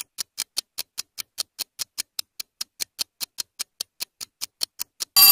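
Quiz countdown timer ticking evenly, about five ticks a second, while the answer time runs out. Just at the end a short, loud bell sounds, marking that time is up.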